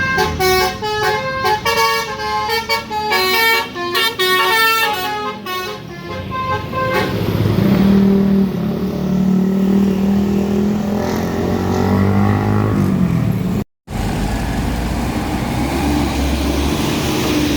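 A truck's musical multi-tone horn playing a quick tune of short notes for about the first seven seconds. Then a heavy diesel truck engine runs with its pitch gliding up and down as it pulls along. After a sudden break, steady engine and road noise follow.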